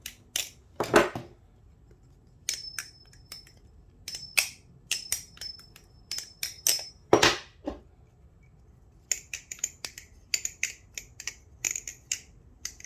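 Balisong (butterfly knife) being flipped: irregular metallic clicks and clacks of the handles swinging around the blade and knocking together, with louder clacks about a second in and past the middle, and a quicker run of light clicks near the end. A thin, high metallic ring hangs between several of the clacks.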